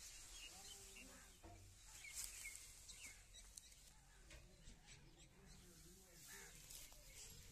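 Near silence: faint outdoor ambience with a few distant bird chirps.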